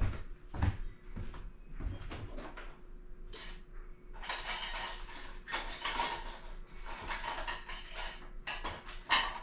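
Metal kitchen utensils clattering as someone rummages through them for a knife: a few scattered knocks, then several seconds of busy rattling and clinking from about four seconds in.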